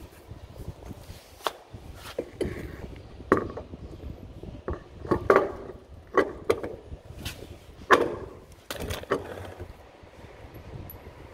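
A road wheel and tyre being handled and fitted onto a car's rear hub: irregular knocks and clunks of the wheel against the hub and studs, some with a short metallic ring, loudest about 3, 5, 6 and 8 seconds in.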